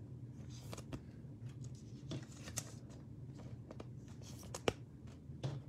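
Football trading cards handled and flipped one behind another: faint scrapes of card stock sliding over card stock and small clicks, with one sharper click a little past the middle.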